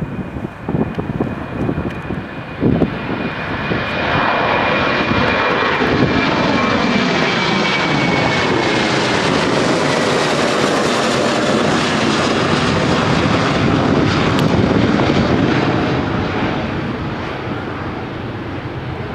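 Boeing 737-800's CFM56 turbofan engines at climb power as the jet passes overhead after takeoff. The roar builds over the first few seconds, with a high whine slowly falling in pitch, is loudest around the middle as the plane goes over, then fades as it climbs away. Wind gusts on the microphone near the start.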